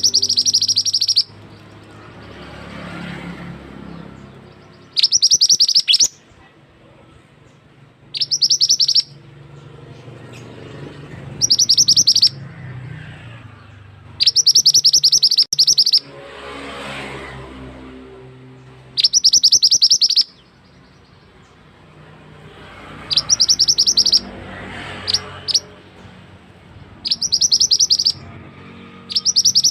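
Call of a male mandi darah (mantenan) bird used as a hunting lure: short bursts of rapid, high-pitched chipping notes, each about a second long, repeated every three or so seconds.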